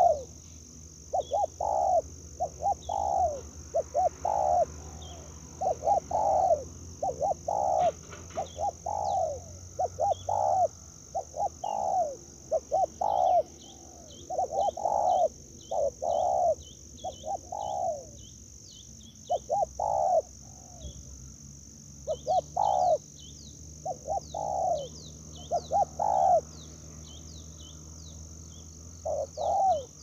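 A dove cooing over and over, in short arched coos that come in quick groups of two to four. Small birds chirp in rapid high series in the middle and near the end, over a steady high hiss.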